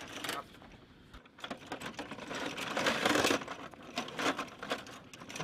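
Linked cannon cartridges clinking against each other and the metal ammunition box as a belt is handled and fed into the box: a quick run of light metallic clicks and rattles, busiest in the middle.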